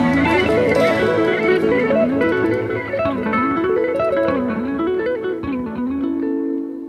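Background music: a fast guitar melody running up and down over held chords, fading out near the end.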